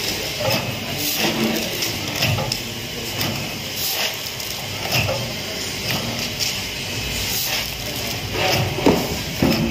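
Automatic form-fill-seal pouch packing machine running, its mechanism clacking once every second or so as each pouch is sealed and cut, over a steady mechanical noise.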